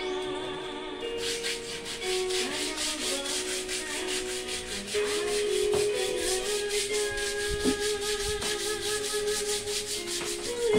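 Sandpaper rubbed by hand over dried putty in quick, even back-and-forth strokes, starting about a second in.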